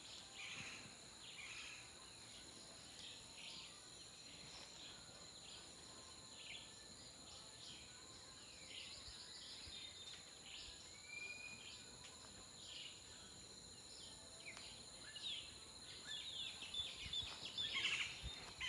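Small birds chirping in many short calls over a steady, high insect drone, getting louder and busier near the end.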